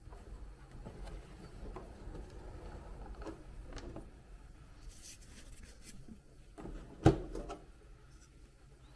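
Handling noise from the plastic lid of an ultrasonic jewelry cleaner being rubbed and lifted off, with a few light clicks, then one sharp clack about seven seconds in.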